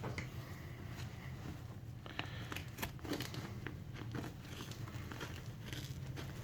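Trauma shears clicking and crunching against the fabric cover of a bulletproof vest panel, with crinkling of the material, as the blades are worked at the tough layers. A steady low hum runs underneath.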